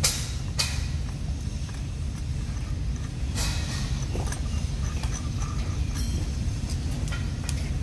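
Steady low rumble, with a few light metallic clicks as nuts are spun by hand onto the bolts of a PVC pipe flange.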